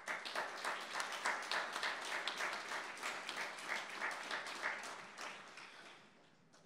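Audience applauding: many hands clapping together, starting at once and dying away after about five seconds.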